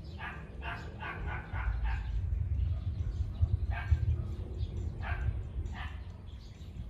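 Dog barking: a quick run of barks in the first two seconds, then single barks about a second apart later on, over a steady low rumble.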